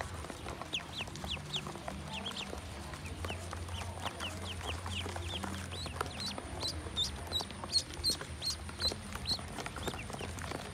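A clutch of ducklings peeping: many short, quick chirps overlapping throughout. From about six seconds in, while a hand is among them, the peeps turn higher and sharper.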